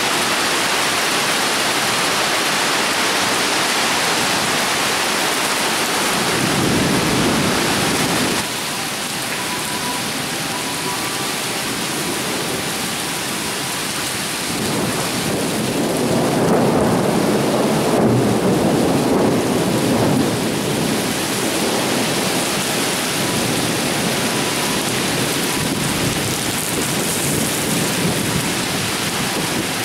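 Torrential thunderstorm rain hissing steadily, with thunder rumbling twice: once about six seconds in and for a longer stretch around the middle. The level drops abruptly about eight seconds in.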